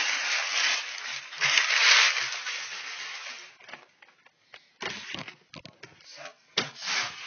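Close rustling and crinkling of a doll box's plastic packaging being handled right at the microphone, dense for the first three and a half seconds, then a string of clicks and knocks near the end.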